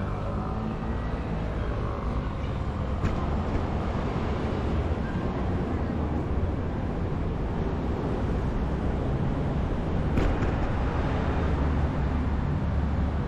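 Steady low wind rumble and road noise on a microphone riding along on a bicycle, with two short clicks about three and ten seconds in.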